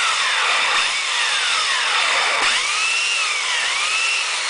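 Handheld electric belt sander running on a wooden parquet block, its motor whine dipping and rising again several times as it works the wood.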